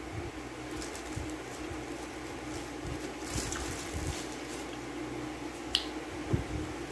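Chewing and mouth sounds of someone eating pizza, with scattered soft thumps and clicks, over a steady low hum. A light crinkle of plastic wrap comes around the middle.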